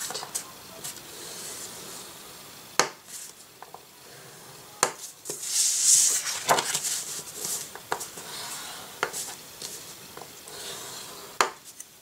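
Cardstock being scored with a bone folder on a grooved scoring board and slid about on the board: several sharp taps and scrapes spread out, with a longer rustling scrape about halfway through.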